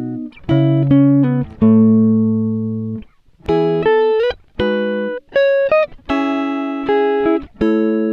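Background music: plucked guitar chords and single notes, each left to ring and fade, with short breaks between phrases.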